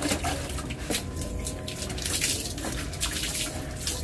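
Water splashing and sloshing in uneven bursts while a puppy is bathed, with a plastic dipper scooping water from a bucket.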